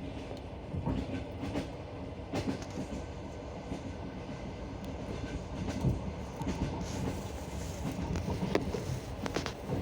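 Train wheels clacking over the rail joints of jointed track, sharp knocks at uneven intervals over a steady rolling rumble.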